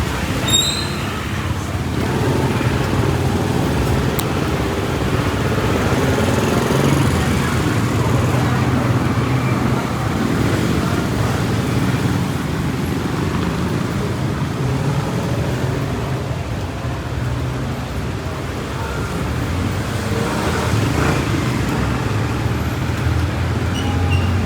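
Street traffic noise: vehicle engines running steadily with a continuous low hum, and faint voices now and then.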